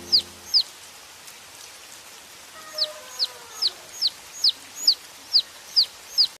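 Baby chicks peeping: short, high chirps that fall in pitch. Two come at the start, then after a pause of about two seconds they return in a steady run of about two a second.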